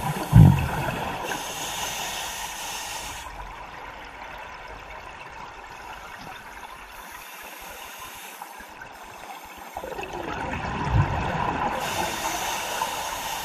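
A scuba diver breathing through a regulator underwater: two rushes of exhaled bubbles, the first just under a second in and the second about eleven seconds in, with regulator hiss between.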